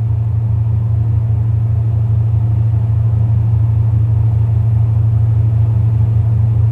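Ship's machinery running with a steady deep hum that stays at one pitch and level throughout, with a faint fast pulsing underneath.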